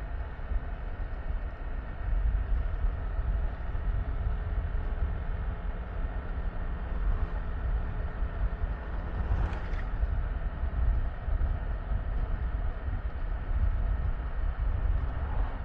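Yamaha Tricity 155 three-wheeled scooter riding along: a steady low rumble of engine and wind on the camera's microphone, with a brief hiss about two-thirds of the way in.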